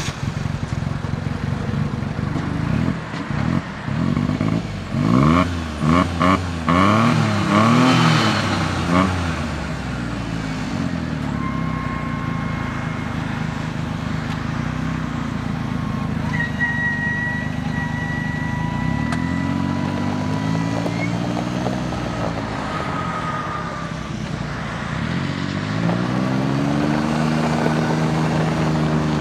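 John Deere 825i Gator's three-cylinder gas EFI engine running, revved in several quick blips, then running on with the engine speed rising and falling a few times.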